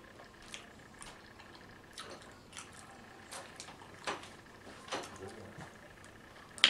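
Close-up mouth sounds of eating: wet chewing and lip smacks in short clicks about every half second to a second, with a sharper, louder smack near the end.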